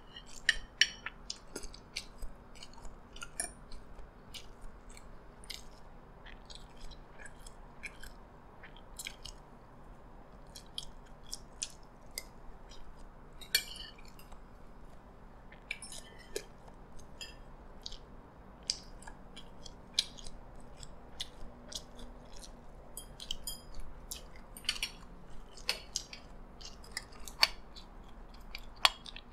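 Close-up chewing of a large mouthful of fried rice, with irregular short clicks and scrapes of a metal spoon and fork against a china plate.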